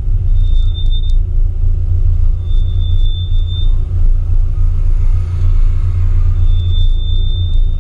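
Classic Mini's A-series four-cylinder engine running at low speed in slow queueing traffic, picked up through the bonnet as a heavy, steady low rumble. A thin high whine comes and goes three times.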